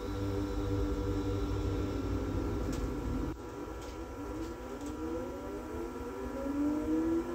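Interior of an SZU Be 520 electric railcar under way: a low running rumble with a traction-motor whine of several tones that slowly sinks in pitch. About three seconds in, the low rumble drops away and the whine climbs steadily in pitch.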